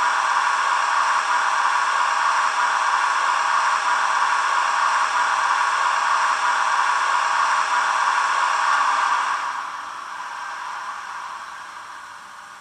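Zimo sound decoder in a Roco model of an SBB Re 460 electric locomotive, playing the recorded strong ventilation-fan sound through the model's small loudspeaker. It is a steady, loud blowing hiss that winds down and fades out from about nine seconds in as the fan function is switched off.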